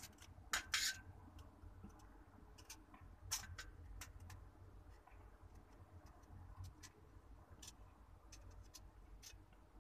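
Mother cat licking her newborn kittens: faint, irregular wet clicks and smacks of her tongue, with a few louder ones in the first second and again about three and a half seconds in.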